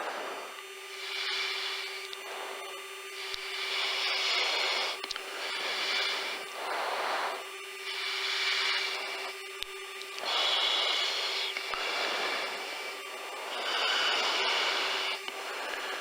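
A fighter pilot's breathing into an oxygen-mask microphone: hissing breaths every one and a half to two seconds over a steady cockpit hum.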